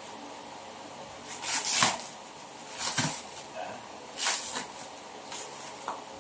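Plastic stretch wrap on a new tire crinkling and tearing in several short bursts as it is pulled off, the loudest about two seconds in.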